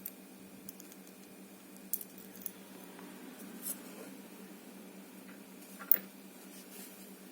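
Faint small metal clicks and ticks, a few scattered ones with a sharper click about six seconds in: a pin and tools being handled while loading the spool pins back into an ABUS 72/40 padlock's core.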